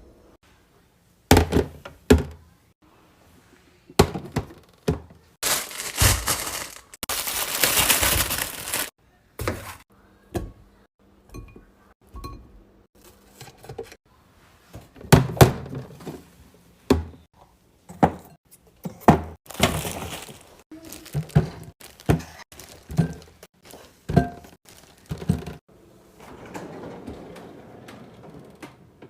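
Snacks and drinks being handled and set down while restocking: a string of sharp knocks and clunks, with a few seconds of continuous rushing noise about six to nine seconds in.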